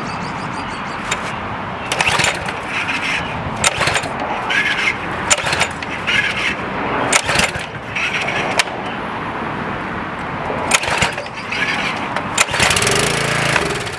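Briggs & Stratton 6.75 engine on a pressure washer being pull-started on starting fluid: repeated recoil-starter pulls. Near the end it fires and runs for about a second, then dies. This is the sign of fuel starvation, a carburetor or fuel problem: it runs only while the starting fluid lasts.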